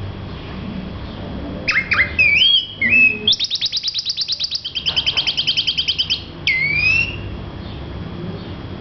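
A grosbeak (rey del bosque) singing: a phrase of slurred whistled notes, then a fast, even trill of rapidly repeated notes lasting about three seconds, ending in a couple of sweeping whistles.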